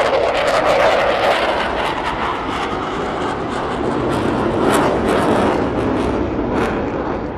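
A WWII piston-engined fighter making a loud, low pass, its engine running at power with sharp exhaust crackles; the sound swells slightly midway and begins to fade near the end.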